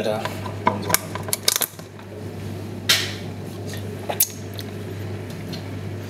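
A small plastic food tub being handled and opened: scattered light clicks and clatter, with one short scraping rustle about three seconds in. A steady low hum runs underneath.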